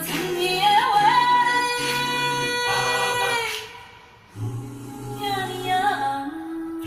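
A Hokkien ballad with female singing and instrumental backing, played through Bose 301 loudspeakers. A long held sung note ends about three and a half seconds in; after a brief dip, the singing and music resume.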